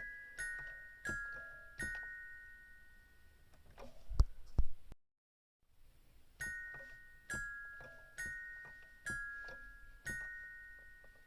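Homemade electronic car chime playing a short melody of two-tone chime notes, one about every 0.7 s, each ringing and fading out. About four seconds in come two loud, low thumps, then a brief drop to silence, and the melody starts over about six seconds in.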